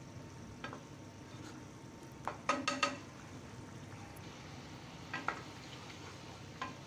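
Wooden spatula stirring a simmering, watery paneer curry in a nonstick pot, over a steady low sizzle. The spatula scrapes and knocks against the pot a few times, loudest about two and a half to three seconds in, with a brief squeak. The curry is being cooked down until some of its water reduces.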